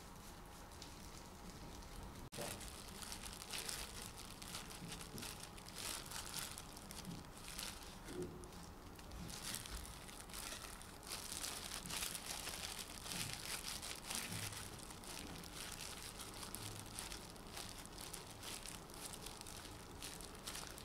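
Disposable plastic gloves crinkling, with soft squishing, as hands squeeze and knead mashed-potato dough in a glass bowl, starting about two seconds in.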